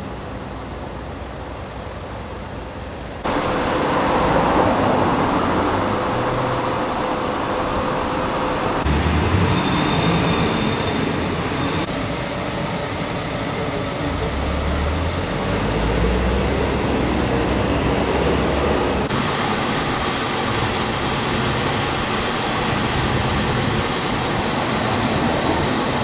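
City street ambience: a steady wash of traffic noise with a low rumble of passing vehicles through the middle. The sound changes abruptly several times, as shots are cut together.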